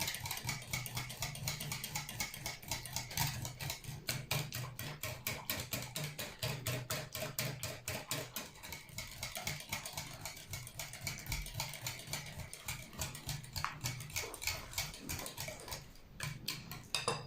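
Runny egg, sugar, oil and milk batter being beaten by hand in a bowl: quick, even strokes of about five a second that clack against the bowl, stopping just before the end.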